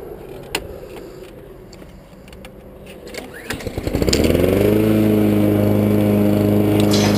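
Honda walk-behind lawn mower pull-started: a quick rattle of the recoil starter cord about halfway through, and the small four-stroke engine catches on the first pull, revs up and settles into a steady run. A few light clicks come before the pull.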